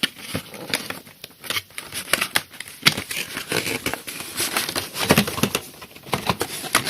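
Hands handling a cardboard trading-card collector box: irregular rustling, scraping and small tapping clicks as it is turned over and opened.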